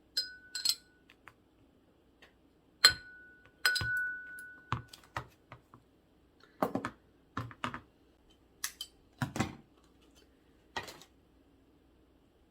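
Kitchenware being handled and set down: a few sharp clinks, two of which ring on briefly with one clear tone like a struck bowl or glass, then several duller knocks and thuds.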